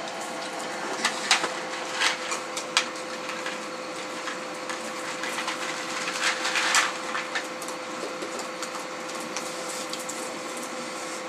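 Raccoons eating dry dog food from dishes: scattered sharp clicks and crunches, with a denser patch of crackling about halfway through, over a steady background hum.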